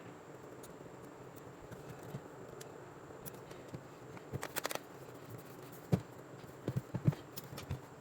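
Light clicks and taps of hand tools and parts being handled on a repair bench, over a steady hiss with a faint high-pitched whine; a quick run of clicks comes about halfway and a few sharper knocks near the end.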